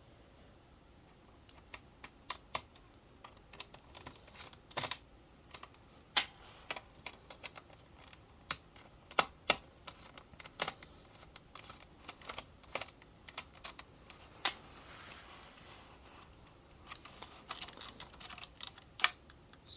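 Irregular small clicks and taps of a screwdriver and the plastic router casing being handled as the router is unscrewed and taken apart, with a short stretch of faint scraping a little past the middle.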